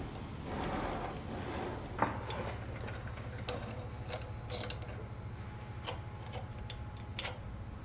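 Puch Maxi moped's roller drive chain being handled and fitted, its metal links clicking and clinking in scattered light ticks, a few with a short ring. A steady low hum runs underneath.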